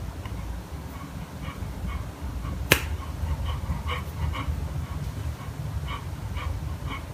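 Chocolate Labrador retriever panting with its mouth open, with one sharp click a little under three seconds in.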